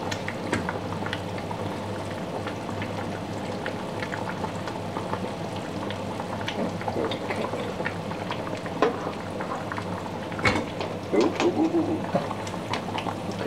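Water simmering with a steady bubbling in the lower pot of a double boiler on a gas hob, under a steel bowl of melting beeswax. A wooden spatula stirs and taps in the bowl, giving scattered small clicks, and a few louder metal knocks come about ten seconds in as the bowl is handled.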